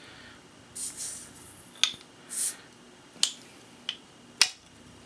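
Metal cap being worked off a glass soda bottle: four sharp clicks of metal on glass, and two short hisses, one about a second in and one about two and a half seconds in, as the seal gives.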